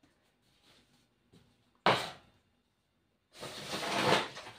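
A single sharp knock about two seconds in. About a second later a kitchen knife starts scraping sticky bread dough off a tabletop, a rough scraping noise that grows louder.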